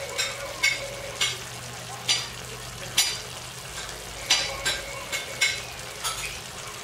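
Pork chops simmering in a pan of thick adobo sauce: a steady sizzle broken by about ten irregular sharp pops as bubbles burst.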